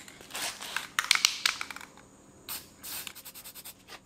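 Aerosol spray-paint can being shaken, its mixing ball rattling, with short bursts of spray hiss.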